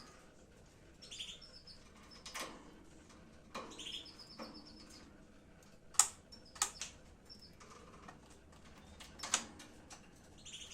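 Lovebirds giving short, high chirps, with a few sharp clicks among them, the loudest about six seconds in.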